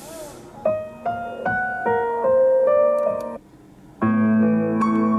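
Car audio playing a piano melody of single notes, which stops about three and a half seconds in. After a short pause a different, fuller song starts, as the track is skipped from the steering-wheel buttons.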